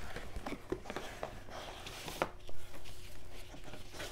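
Paper and cardboard rustling and scraping as a mailing box is unpacked and papers are drawn out, in short scattered bits, with one louder thump a little past the middle.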